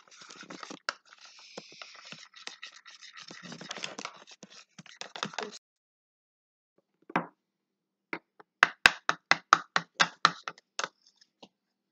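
Honey and soy sauce being stirred in a small bowl: a utensil scraping and clicking against the bowl for about five seconds, then, after a pause, a run of about ten quick taps.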